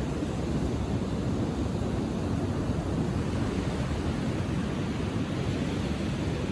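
Ocean waves breaking and washing up the shore in a steady rush of surf, with no single break standing out.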